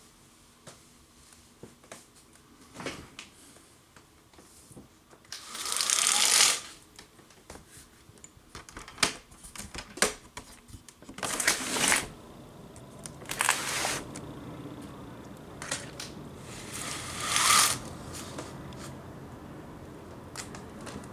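A window being opened by hand: irregular clicks and rattles with several short, loud scraping rushes. From about halfway on, a steady background noise from outside is louder.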